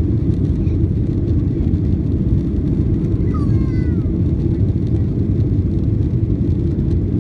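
Inside the cabin of a Boeing 737-800 climbing out after takeoff: the steady low roar of its CFM56-7B engines and the air rushing past the fuselage. A brief high gliding sound about three seconds in.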